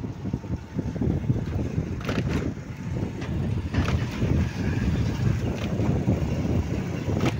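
Riding on a moving motorcycle: wind buffeting the microphone over a low, uneven rumble of engine and road, with a few brief knocks.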